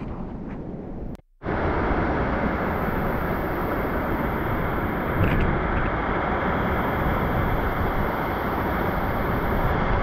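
Steady roar of a waterfall close by, cutting in sharply about a second in after a brief dropout. It is preceded by a softer steady outdoor rush.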